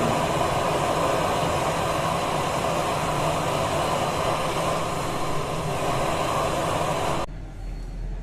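Steady loud rushing hiss of pressurised gas blowing through a split AC indoor coil and copper tubing during leak testing, cutting off abruptly about seven seconds in.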